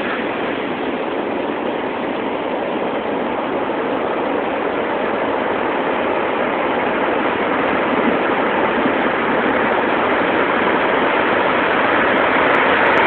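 Heavy surf from a big hurricane swell, waves breaking and whitewater rushing up the sand in a steady rush of noise that slowly grows louder.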